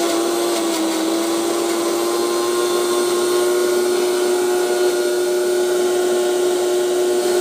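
Kitchen mixer grinder (mixie) running at a steady speed, grinding chutney: a loud, even motor hum at one pitch.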